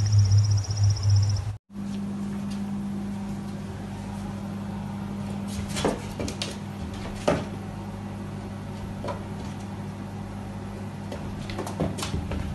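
A cat's paws tapping and knocking against a glass door a few times over a steady low hum. Before that, a loud throbbing low sound cuts off abruptly about one and a half seconds in.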